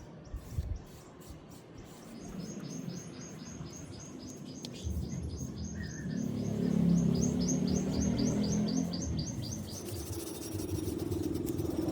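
A small bird chirping over and over, about three or four short high chirps a second, over a low rumbling noise that swells in the middle.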